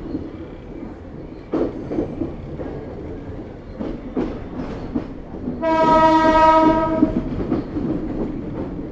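Sri Lanka Railways Class S9 diesel multiple unit running along, its wheels clattering over rail joints and points. About six seconds in, a train horn sounds one steady-pitched blast of about a second and a half.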